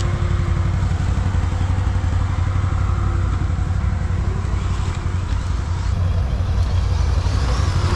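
Can-Am ATV's Rotax V-twin engine running steadily.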